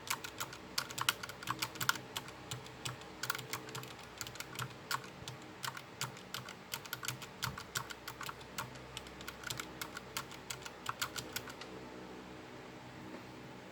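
Fast typing on a keyboard with its keycaps removed, the bare key switches pressed directly and clicking rapidly. The typing stops about twelve seconds in.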